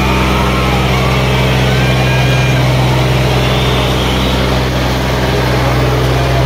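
Diesel tractor engine running at a steady speed, a loud, even low drone that neither rises nor falls.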